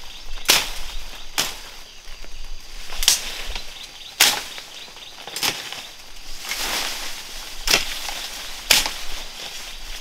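Repeated sharp chopping strikes, seven of them at uneven gaps of one to two seconds, over a steady outdoor background hiss.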